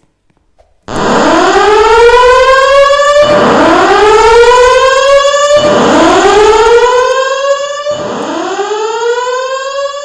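Simplex fire alarm voice-evacuation speaker sounding its slow whoop alert tone, which starts abruptly about a second in. The tone runs as four rising sweeps, each about two and a half seconds long and each starting again from low. It is the evacuation signal that precedes the recorded spoken message.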